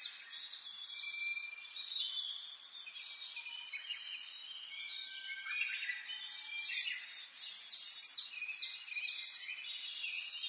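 Several songbirds chirping and singing in overlapping phrases, over a steady, high, fast-pulsing trill that stops for a couple of seconds midway and then resumes.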